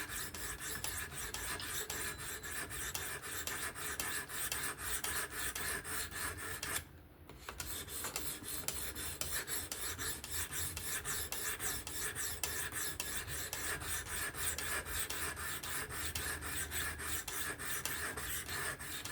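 600-grit abrasive on a Work Sharp Professional fixed-angle sharpener rasping across the edge of an S30V knife blade in quick, even strokes, several a second, with a short pause about seven seconds in. This is the 600-grit stage on the second side, raising a burr before the ceramic.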